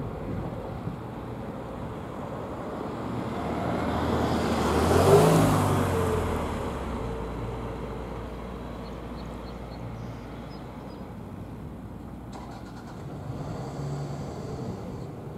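A road vehicle passes close by, its engine and tyre noise swelling to a peak about five seconds in, dropping in pitch as it goes past, and then fading. Underneath, the steady distant sound of a helicopter flying away.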